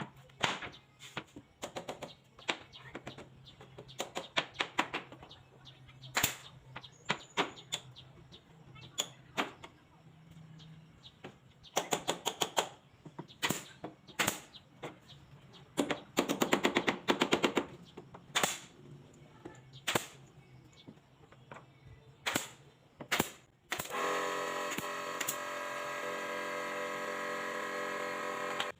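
Woodworking on a door frame: a string of sharp knocks and strikes, some coming in quick runs. About 24 seconds in, a power tool's motor starts and runs at a steady pitch for the last few seconds.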